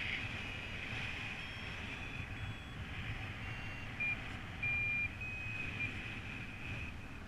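Paragliding variometer beeping in short high tones that step in pitch, the climb signal of rising air. The loudest are a brief beep about four seconds in and a longer held tone just after. Wind rumbles on the microphone throughout.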